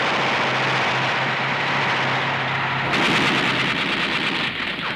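Dense battle noise of gunfire and explosions, loud and unbroken, growing louder about three seconds in.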